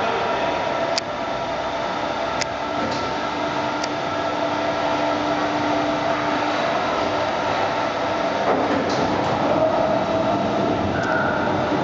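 Promau Davi MCB 3020 hydraulic four-roll plate bending machine running empty: a steady machine hum with several held tones from its hydraulic pump and roll drive, and a few sharp clicks in the first four seconds. The tones shift about eight and a half seconds in.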